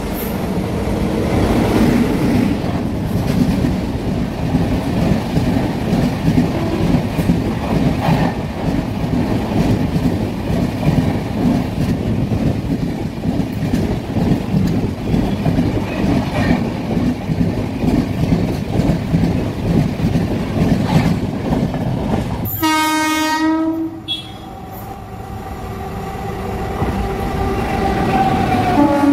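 An express train hauled by a WAP-7 electric locomotive passes close at speed, its coaches' wheels on the rails making a loud, steady noise for most of the clip. Then a locomotive horn sounds briefly. A second train hauled by a WAG-5 electric locomotive approaches, growing louder, with another short horn note at the end.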